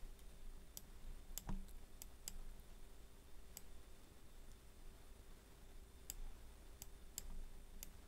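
Computer mouse clicking: about ten faint single clicks at irregular intervals as windows are dragged about the screen.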